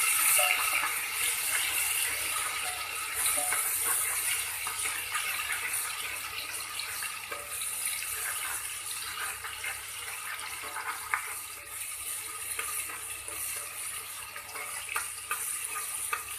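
Chopped tomatoes and ginger sizzling in hot refined oil in a pan, a steady hiss that slowly dies down, with a few light clicks near the end.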